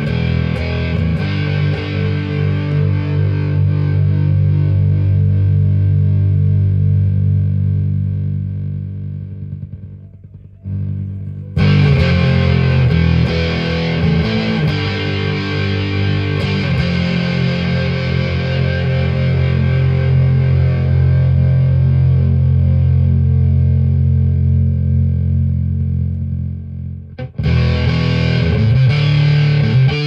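Guitar played through a hand-built clone of a Jack Orman fuzz pedal, switched on: heavily fuzzed chords are struck and left to sustain and fade away. They are struck again about a third of the way in and once more near the end.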